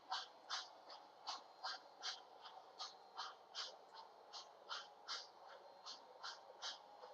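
MTH model trains running on the layout a few metres off, heard faintly as a steady series of short hissing puffs, nearly three a second.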